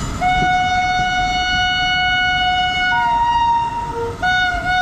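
Indian Railways electric locomotive's horn sounding: a long steady low blast, then a short higher note, then after a brief break the low blast again near the end. Train rumble runs underneath.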